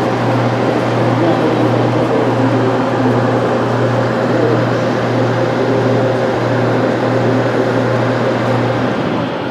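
Steady low mechanical hum over a continuous noisy background; the hum stops about nine seconds in.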